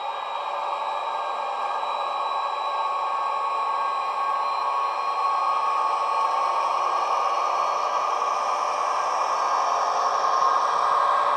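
ESU LokSound decoder's simulated MTU diesel engine sound from a Piko Rh 2016 'Hercules' model locomotive, played through its small onboard speaker: a steady, thin engine drone with no deep bass, growing louder as the locomotive runs close by.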